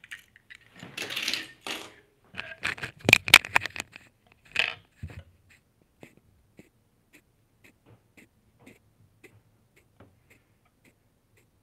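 Die-cast toy cars clattering and clicking as they are handled and set down on a tiled tabletop, with the sharpest knocks about three seconds in. After that comes a run of faint ticks, about two a second.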